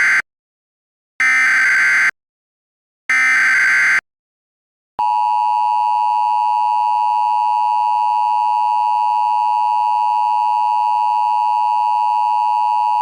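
Emergency Alert System alert tones: the end of one SAME header data burst, then two more data bursts about a second long each, evenly spaced. About five seconds in, the two-tone EAS attention signal starts, a steady high tone that holds without a break, announcing an emergency alert message.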